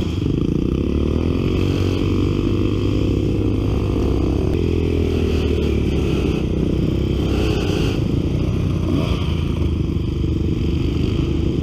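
Off-road motorcycle engine running hard and revving. Its pitch climbs over the first couple of seconds, then holds fairly steady with small dips and rises.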